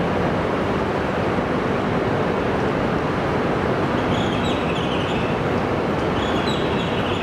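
Steady hum and rush of a stationary E926 East-i Shinkansen's onboard equipment at the platform. A few short high chirps come about four seconds in and again near the end.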